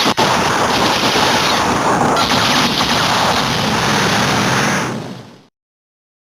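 Watermelon Lockseed rapid-fire gunfire sound effect: a dense, continuous burst of shots that fades out about five seconds in and ends in silence.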